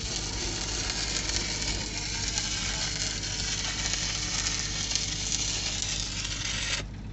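Stick-welding arc on steel pipe with a cellulosic electrode (6010/7010) burning downhill: a steady, loud crackling sizzle that cuts off suddenly near the end as the arc is broken.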